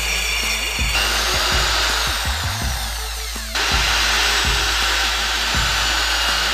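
Corded electric drill running as it bores into laminated chipboard, over background music with a steady beat.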